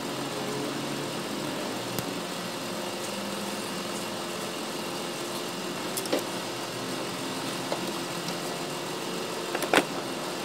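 A steady mechanical hum with a few sharp clicks and knocks from hoses and fittings being handled in an engine bay, the loudest a double knock near the end.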